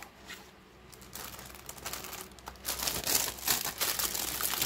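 Plastic bags and paper crinkling and rustling as the contents of a model kit box are handled. The rustling starts about a second in and grows louder and busier about halfway through.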